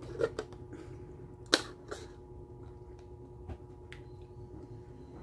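A few light clicks and taps of plastic as a straw is pushed into the domed lid of a plastic drink cup, the sharpest click about a second and a half in.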